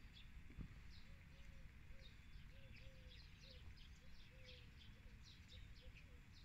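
Faint birdsong: many quick high chirps in a row, with a softer, lower repeated note, over a low rumble.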